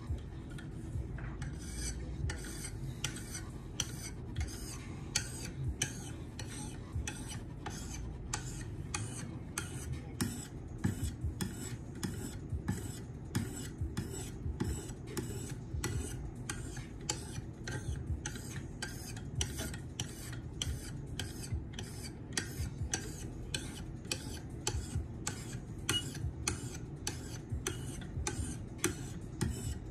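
A 1500-grit stone on a KME guided sharpener's rod stroked along a knife edge: short scraping passes in a steady rhythm of about two a second, starting about a second and a half in.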